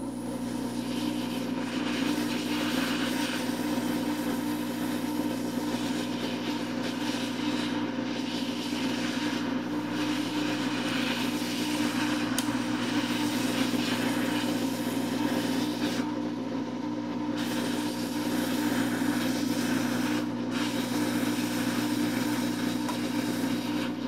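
Hot air rework station blowing steadily, a constant hum with a hiss of air, while it heats the micro USB port off the circuit board to desolder it.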